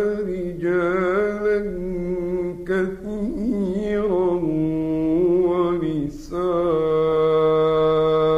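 A male voice reciting the Quran in a slow, melodic chant, drawing out ornamented notes that waver in pitch, with short pauses between phrases. In the last couple of seconds he holds one long steady note.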